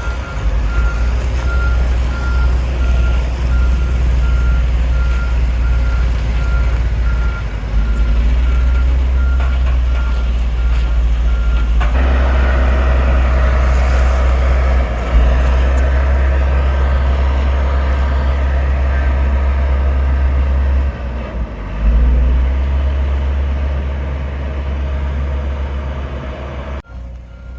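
Heavy diesel construction vehicle running with a deep engine rumble, its reversing alarm beeping evenly while it backs up, then stopping about twelve seconds in as the engine note rises.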